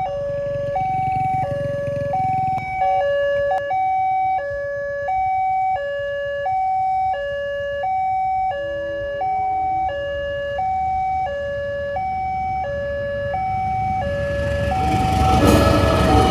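Electronic railway level-crossing alarm sounding with the barriers down, a two-tone chime alternating high and low, each tone held about three-quarters of a second, warning of an approaching train. In the last two seconds the rumble and rail noise of a locomotive-hauled passenger train rise as it reaches the crossing.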